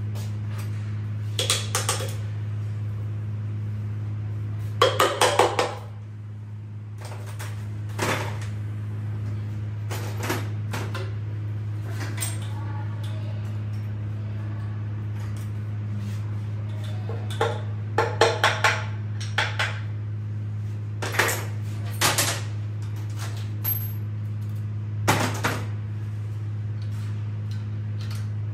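Metal tools and engine parts clinking and knocking against a Toyota 2TR-FE engine block on an engine stand, in scattered single knocks and short quick clusters, over a steady low hum.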